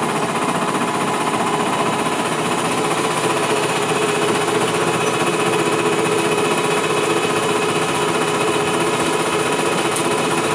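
A small boat engine running steadily, an even drone with several steady tones that does not change in pitch or level.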